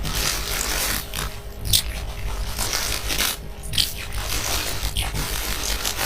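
Rustling and scraping noises that come and go in short strokes, over a steady low hum.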